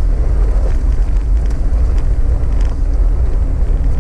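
Off-road vehicle driving along a gravel dirt trail: a steady low engine and tyre rumble with a few light knocks from the gravel and suspension.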